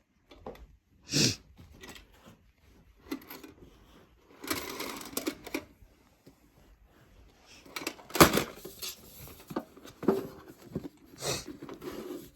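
Scattered clicks, knocks and rustling from handling a cash register and money, with the sharpest knock about eight seconds in.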